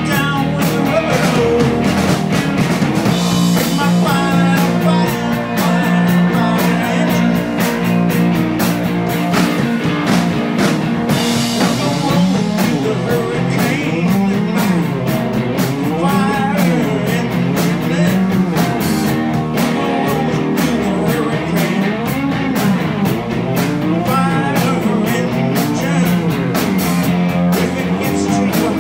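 Live rock band playing loud: electric guitars, electric bass and drums, with notes gliding up and down through the middle of the passage.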